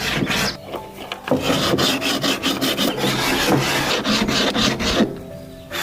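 Wood being abraded by hand in repeated rough strokes, roughly one a second, as when a drum's wooden shell is rasped or sanded.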